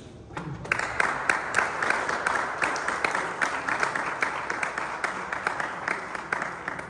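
Audience applauding: many hands clapping together, starting about a second in and dying away near the end.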